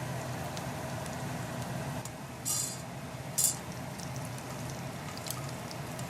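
Kitchen cooking sounds: a steady low hum with faint scattered ticks, and two short sharp noises about a second apart midway.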